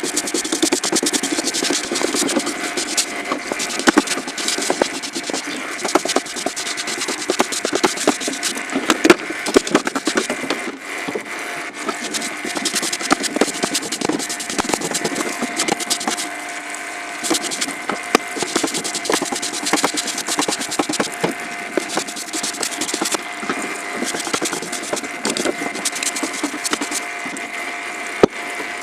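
Small power tool running with a steady motor tone while its abrasive scrapes and rubs against the metal of a rusty pipe cutter.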